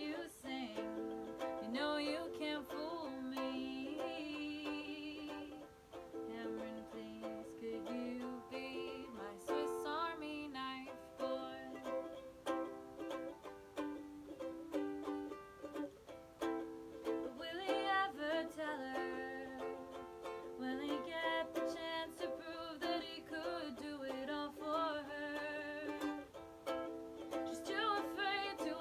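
Instrumental passage of an acoustic song: a plucked string instrument playing a melody with frequent note changes.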